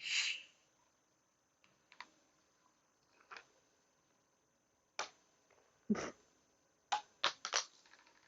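Handling noise: a short hiss at the very start, then scattered light clicks and taps, one with a duller thud about six seconds in and a quick run of three or four clicks near the end.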